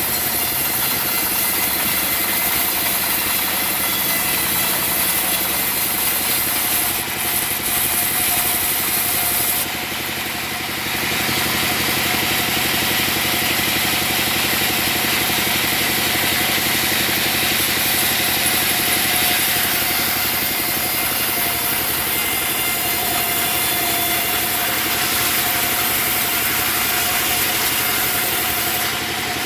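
Type-28 sawmill sawing a nyatoh log: the engine-driven saw runs steadily, its blade rasping through the wood, with a short dip in the noise about ten seconds in.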